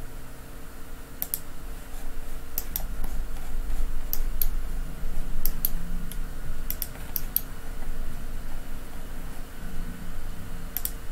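Scattered sharp clicks of a computer mouse and keyboard, most coming in quick pairs, with a pause in the middle before a last pair near the end.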